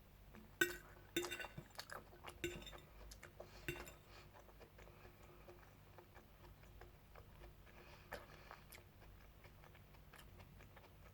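Cutlery clinking and tapping against a plate several times in the first few seconds, then only a couple of faint taps.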